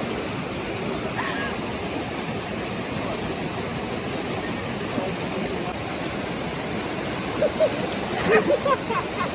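Fast-flowing river water rushing steadily, a strong current. Brief voices break in near the end.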